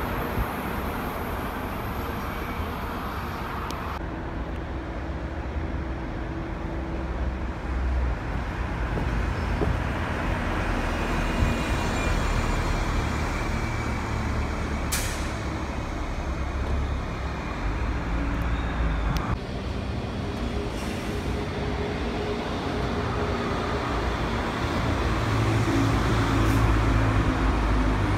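Single-deck buses running and manoeuvring, a steady low engine rumble, with a short sharp hiss of air brakes about halfway through. The engine noise grows louder near the end as a bus comes close.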